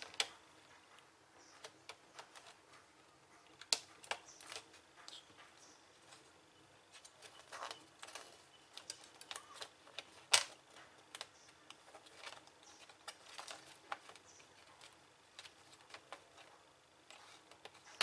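Light plastic clicks and taps of fingers fitting a laptop's small speaker cable connector and pressing its wire into place, scattered and irregular, the sharpest about ten seconds in.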